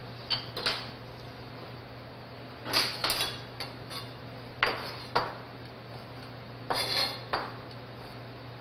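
Chef's knife cutting a rolled egg crepe into julienne strips, the blade knocking on the cutting board in a few quick groups of strokes with pauses between. A steady low hum runs underneath.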